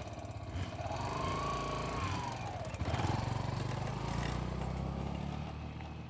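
Yamaha XTZ125's single-cylinder four-stroke engine running as the motorcycle is ridden. Its pitch rises and falls with the throttle about a second in, then climbs again near the middle.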